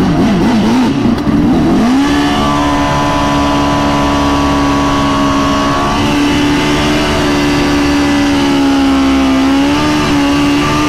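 Turbocharged Suzuki GSX-R1000 drag bike's inline-four engine blipped up and down a few times. About two seconds in, it is held at a steady high rpm, with a brief dip near the end.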